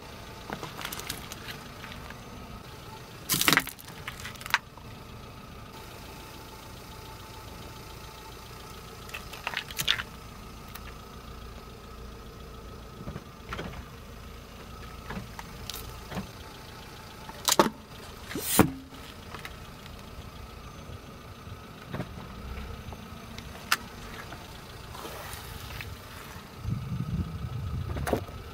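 Car engine idling low as its tyre rolls slowly over small objects on asphalt (a cardboard pill box, wax candles, a rubber ball), crushing them with repeated sharp cracks and crunches. The loudest crack comes a few seconds in, and a close pair comes about two-thirds of the way through.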